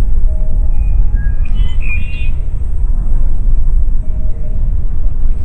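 Wind buffeting the microphone with a loud, steady low rumble, and a small bird chirping a quick run of high notes about a second and a half in.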